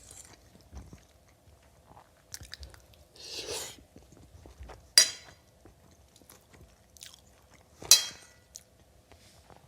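Close-up chewing of a mouthful of fried instant noodles with crispy bacon, wet mouth clicks and smacks throughout. Two sharp, loud clicks stand out, about five and eight seconds in.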